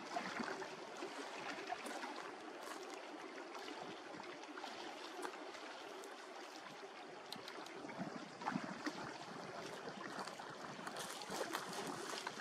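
Small waves lapping at the lakeshore: a soft, steady wash of water with little splashes and trickles throughout.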